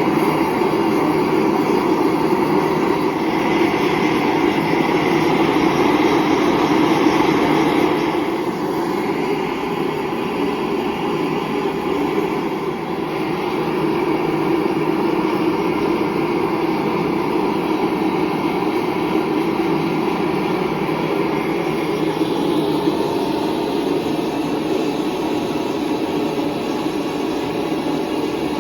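Electric grinder running steadily as a steel knife blade is ground, easing slightly about eight seconds in.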